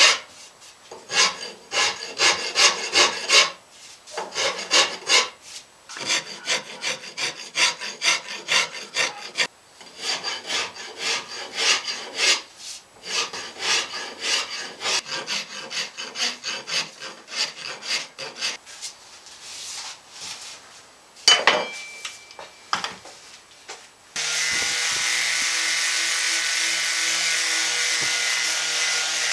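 A hand rasp carving a wooden guitar neck heel in fast back-and-forth strokes, in runs of a few seconds with short pauses. About 24 seconds in it gives way to an electric palm sander running steadily.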